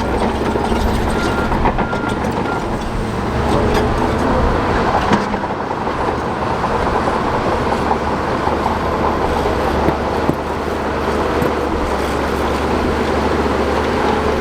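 Shantui DH17 crawler bulldozer working, its diesel engine running steadily under a constant clatter of steel tracks as it pushes rock.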